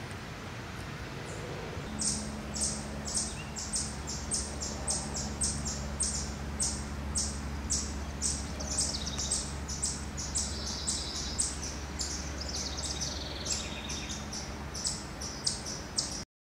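Eastern chipmunk giving its repeated chip alarm call: short, sharp, high chips at an even pace of about two a second, over a steady low hum. The sound cuts off suddenly near the end.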